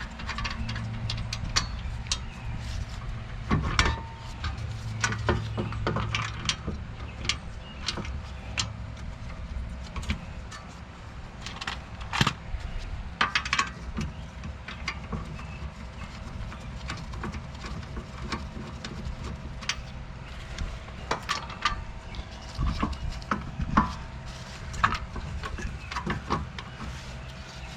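Irregular metallic clinks and knocks of hand tools and hub bolts as a rear wheel hub bearing assembly is lined up and its bolts are started, over a steady low hum.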